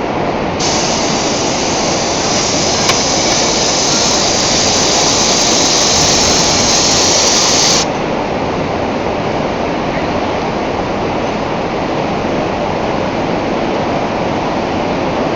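Thermic oxygen lance burning. A loud oxygen hiss with crackling comes on about half a second in and cuts off suddenly about eight seconds in, over a steady background noise that runs the whole time.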